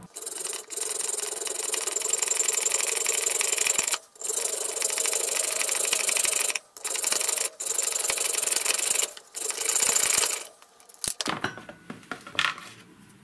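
Hand-held rotary tool with a cutting disc grinding off a screw head, a steady high whine and hiss broken by about five short pauses. Near the end the grinding stops and a few metal clicks and scrapes follow.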